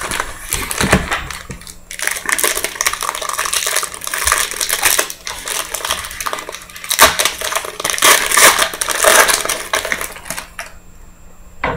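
A foil trading-card pack wrapper being torn open and crinkled by hand while the cards are pulled out, an irregular crackling that stops near the end.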